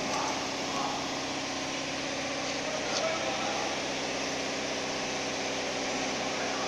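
Omni 6090 CNC router running with a steady hum and one constant tone, its spindle spinning after the cut in 18 mm MDF.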